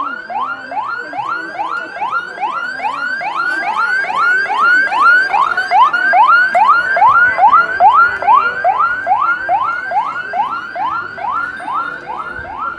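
An electronic siren repeats a fast rising yelp, about three rises a second, with no break. It is louder through the middle.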